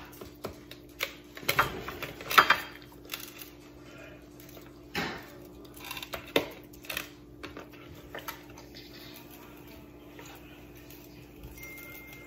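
Spice shaker bottle being shaken over a raw chicken, with light rattles and clatter of the bird and baking pan being handled; a few louder knocks come in the first few seconds and around the middle.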